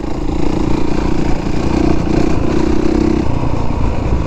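Honda CRF450R's single-cylinder four-stroke engine running at low, easy revs, with the throttle easing off twice, the second lull near the end before it picks up again.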